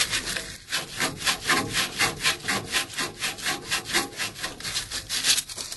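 Old, pitted copper pipe being sanded by hand with quick back-and-forth strokes, about four or five a second, stopping near the end. The sanding only scuffs the surface and leaves the pits in the pipe.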